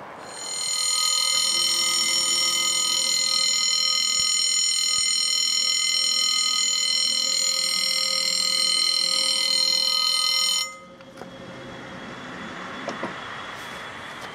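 French level-crossing warning bell ringing: a loud, steady electronic ring. It cuts off suddenly about ten and a half seconds in.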